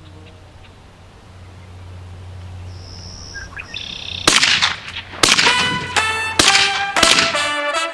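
Brass-like music cuts in about halfway through: a series of loud held notes, each starting with a sharp attack, about four of them. Before that there is only a low steady rumble like wind.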